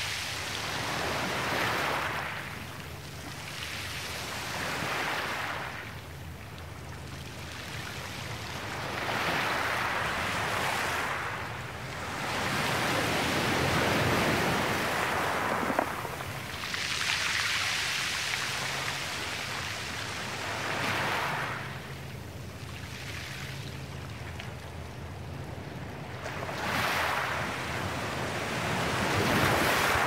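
Small ocean waves breaking and washing up a dark pebble beach, the surf swelling and falling away every three to five seconds.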